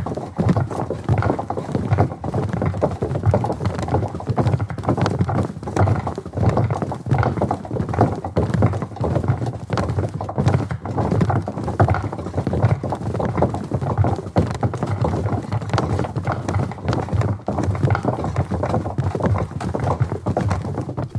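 Many footsteps of a large group of soldiers tramping across a wooden bridge: a dense, continuous clatter of boots thudding on hollow wooden planks.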